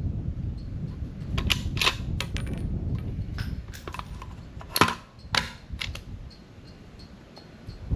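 Sharp metallic clicks and clacks from handling a .308 bolt-action rifle: its detachable magazine is taken out and set down on the shooting bench. The two loudest clacks come about five seconds in.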